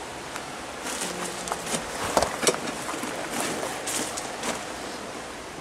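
Handling noise during a pool pump swap on a gravel pad: scattered light knocks and crunches of footsteps and equipment on gravel.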